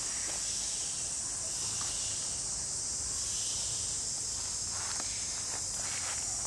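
Steady high-pitched insect chorus, with a few faint clicks about five to six seconds in.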